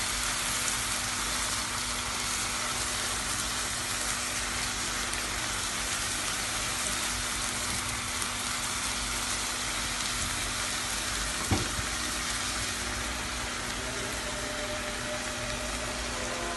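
Diced chicken and chopped onion sizzling as they fry in a nonstick pan, stirred with a silicone spatula. A single knock sounds a little past the middle.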